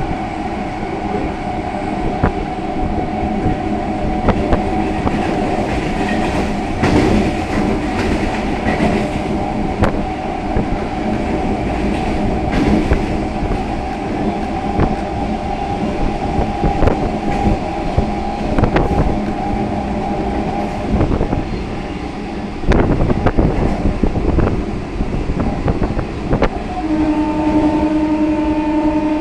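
Electric multiple unit (EMU) local train running along the track: a steady hum over the rumble of the wheels, with wheel clicks over the rail joints. A louder rush of noise comes about 23 seconds in.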